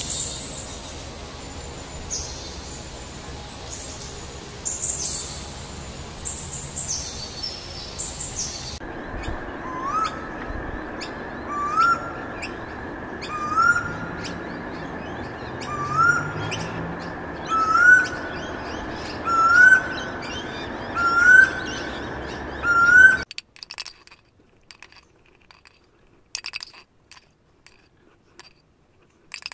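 Birds calling over a steady hiss. High, quick chirps at first, then from about a third of the way in one repeated call that rises in pitch, eight times roughly every two seconds and growing louder, before it cuts off abruptly. Only a few faint clicks follow.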